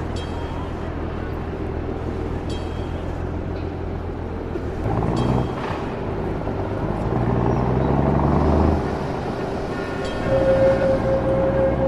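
Street traffic ambience: a steady low rumble of motor vehicles, swelling as vehicles pass, with a few short tonal horn or bell signals and a held horn note near the end.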